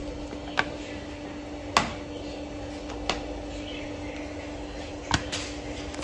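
Steady hum of a cutting press's motor, with about five short sharp clicks and taps as the cutting die and the cut-out plastic sheet are handled.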